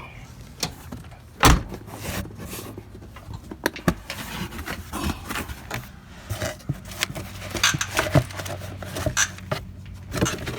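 Irregular metal clanks and knocks of hand tools and a starter motor being handled during the fitting of a new starter, with a steady low hum underneath. One sharp knock about a second and a half in is the loudest.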